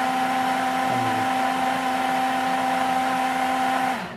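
BlendyGo 3 portable cordless blender's motor running steadily with a steady whine while blending a milky fruit drink, then stopping abruptly about four seconds in.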